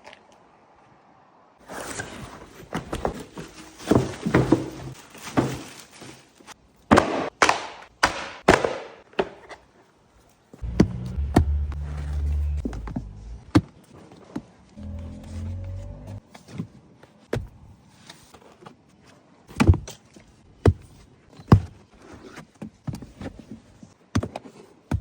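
Car mats and liners being unpacked and handled: rustling packaging and sharp knocks, with dull heavy thuds about halfway through, over background music.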